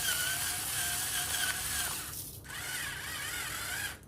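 A salt and pepper grinder grinding in two bursts, the first about two seconds long and the second starting after a short pause, with a wavering whine over the grinding.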